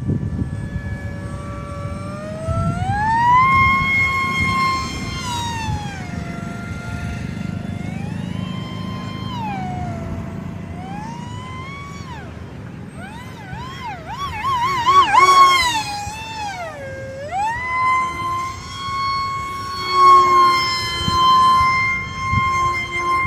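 Small foam RC plane's brushless electric motor and 3x4 propeller whining in flight. The pitch rises and holds, then falls and rises again with the throttle, and wavers rapidly for a couple of seconds past the middle as the plane passes close. A low rumble runs underneath.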